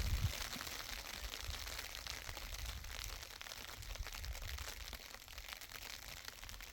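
Steady rain falling, a dense patter of many small irregular drop ticks over a hiss, with a low rumble underneath.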